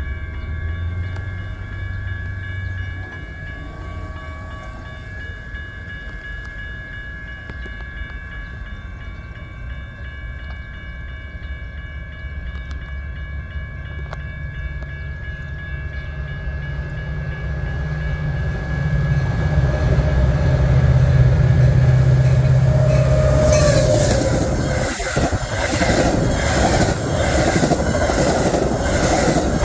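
A train approaching and passing. A low engine rumble grows louder through the second half, then rapid wheel clatter on the rails starts a few seconds before the end.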